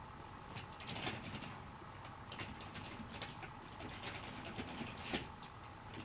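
Battery-powered Trackmaster toy train running along plastic track: a steady small-motor whine with irregular clicks and rattles from the wheels and cars, the loudest click about five seconds in.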